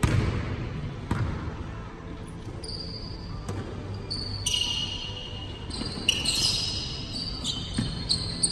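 Basketball bouncing on a hardwood gym floor with a few hard thuds, then from about two and a half seconds in, repeated high-pitched squeaks of sneakers on the court as players cut and shuffle.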